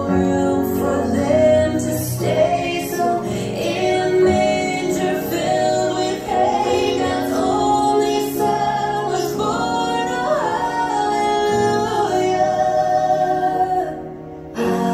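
Gospel song with a woman singing lead over instrumental backing, loud and steady; the music drops out briefly near the end and then comes back in.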